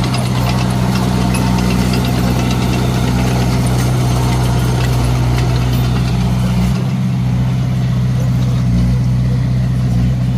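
Komatsu D21A bulldozer's diesel engine running steadily, with light clicking and clattering over the engine that eases off about two-thirds of the way through.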